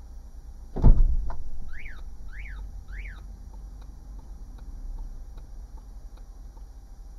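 A heavy thump, then three quick electronic chirps that rise and fall in pitch, about half a second apart, followed by soft regular ticking.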